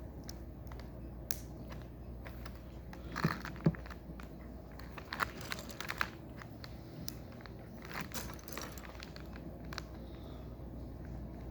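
Plastic Lego pieces being handled during a build: scattered clicks and small rattles with some crinkling, and two louder knocks about three and a half seconds in.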